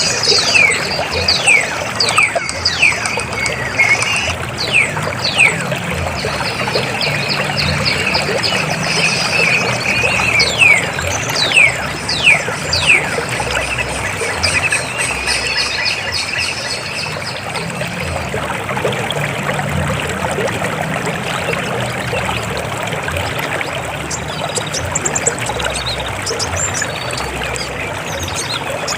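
River water flowing steadily over rocks, a continuous rushing and trickling. During the first half a bird calls repeatedly with short, high, falling whistles.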